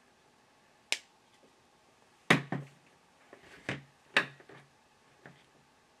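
Sharp snip of small hand cutters through the coax cable's inner jacket about a second in, then several louder clicks and clacks of hand tools being handled, with a faint last click near the end.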